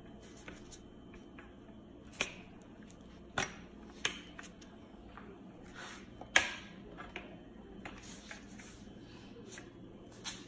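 About five sharp clicks and knocks, irregularly spaced, as the parts of an electric baby cradle swing are handled and fitted together. The loudest comes a little past the middle, over a faint steady room hum.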